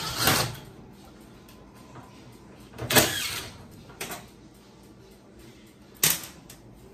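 Cordless impact driver backing screws out of a washing machine's sheet-metal back panel, in four short bursts with the loudest about three seconds in.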